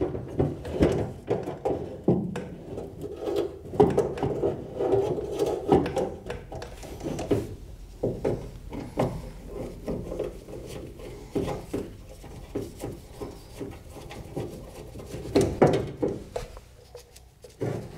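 Truck door window track being handled and fitted into the door shell: irregular clunks, knocks and scraping of metal parts against the door.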